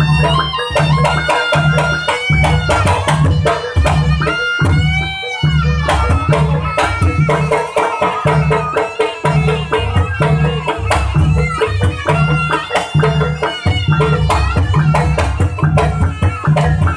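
East Javanese jaranan ensemble music: hand drums keep a steady beat about twice a second under a high melody line that bends in pitch.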